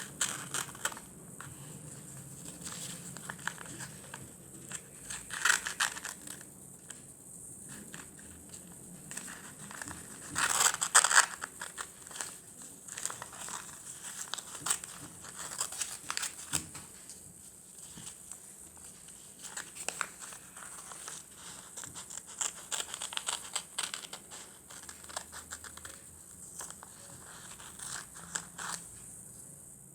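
Paper being handled close up: irregular crinkling and rustling with small taps and scrapes, louder about five seconds in and again at about ten to eleven seconds.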